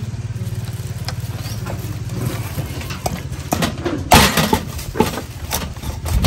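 Cleaver chopping a roasted duck: a few sharp chops starting about three seconds in, the loudest just after four seconds. Under them is a steady low motor hum that fades as the chopping begins.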